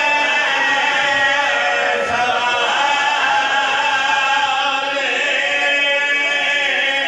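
A man chanting a Shia mourning recitation into a microphone, his voice held in long, wavering melodic lines, continuous and loud.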